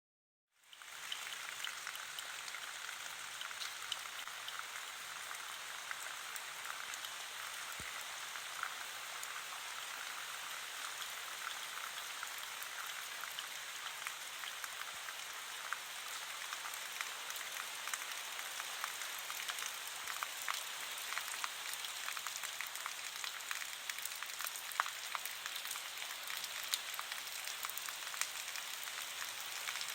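Steady rain falling, an even hiss with many individual drops ticking through it, fading in over the first second.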